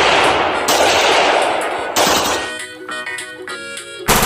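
AK-pattern rifle firing on full automatic in three quick bursts, the last stopping about two and a half seconds in. Near the end a toy gun's electronic machine-gun sound starts, rattling at an even rate.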